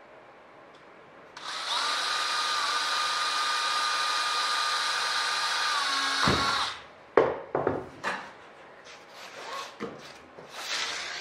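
Cordless drill running at a steady speed for about five seconds, pilot-drilling a hole through a sheet-aluminium flap spar, then spinning down. A few sharp knocks and clatters follow as the spar and board are handled.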